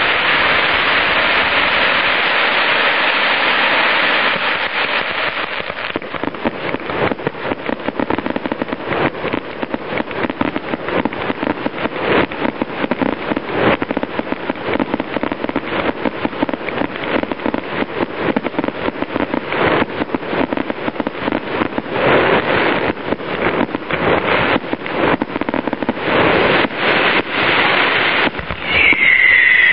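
Fireworks: a ground fountain hisses steadily for about the first four seconds, then a dense, fast run of crackling pops and bangs from bursting shells. Near the end a whistle firework sounds a falling whistle.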